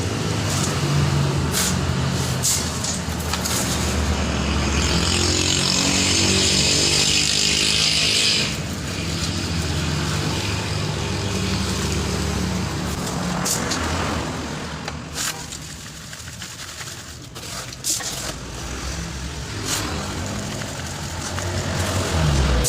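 A motor vehicle's engine running under way, its pitch rising and falling. A loud hiss lasts about four seconds, starting about four and a half seconds in. The engine drops quieter, with a few knocks, in the later part.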